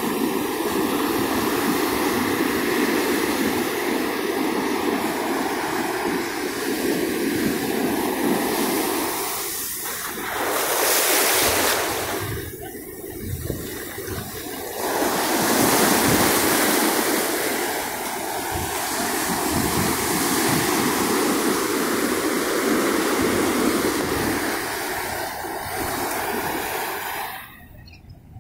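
Rough Pacific surf: waves breaking and washing up the beach in a continuous rushing noise that swells louder about ten seconds in and again a few seconds later.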